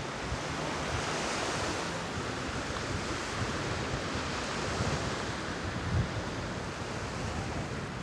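Black Sea surf washing onto a sandy beach as a steady rush, with low rumbles of wind on the microphone now and then.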